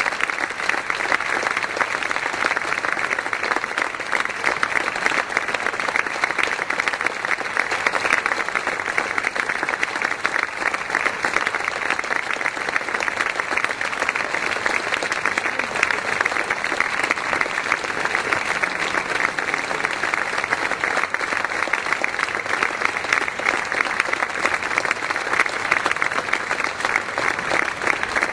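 Audience applauding, a dense, steady clapping that keeps on without let-up.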